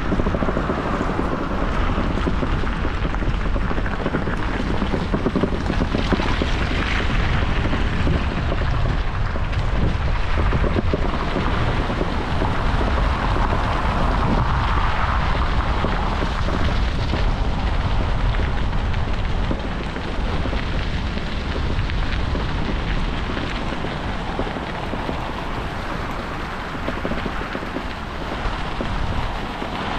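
Wind rushing over the microphone during a bicycle ride: a steady, loud rumbling buffet with tyre and road noise, easing a little in the last third.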